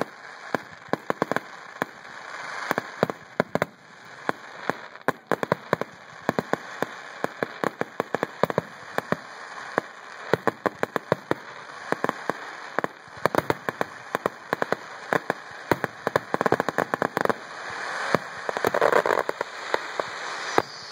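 Fireworks going off: a dense, irregular run of sharp pops and bangs, several a second, with crackling between them.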